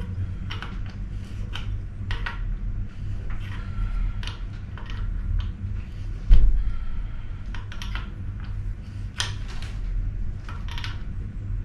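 Hand tools and metal fittings clicking and clinking while hoses and a steel line are fitted to an engine, with one heavier thump about six seconds in, over a steady low hum.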